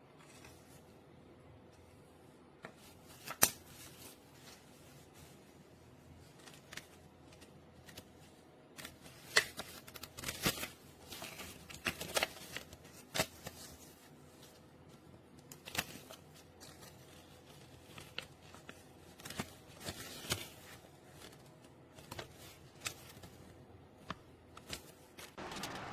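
Irregular clicks, taps and short rustles of things being handled at close range, coming in scattered clusters over a faint steady background.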